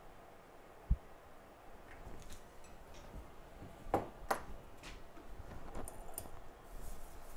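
Scattered small clicks and taps of hand tools being handled at a microsoldering workbench. A short low thump comes about a second in, and the loudest sounds are two sharp clicks about four seconds in.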